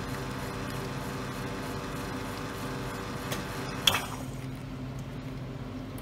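Commercial espresso machine pulling a shot: a steady pump hum with a hiss of coffee streaming into a glass, then a sharp click about four seconds in, after which the hiss stops and the hum goes on. The shot is running fast and runny, about 12 seconds, which the chef reads as a grind too coarse.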